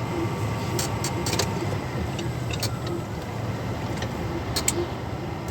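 Steady low engine and road rumble heard inside a moving vehicle's cabin, with a few short clicks and creaks scattered through it.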